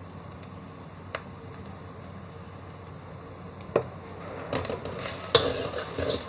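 Metal spatula scraping and clinking against a wok as the food in it is stirred. The stirring starts about four seconds in, over a steady low hum.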